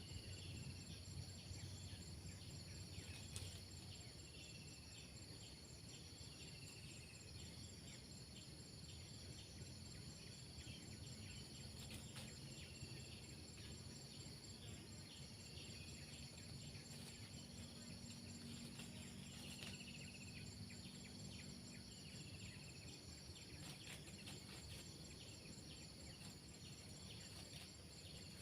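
Faint, steady insect chorus with continuous high-pitched trilling, and a few short, falling chirps scattered through.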